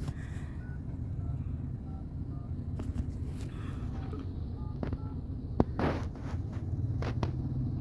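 Steady low rumble of a moving car heard from inside the cabin, engine and tyre noise, with a few light clicks and faint short beeps at varying pitch.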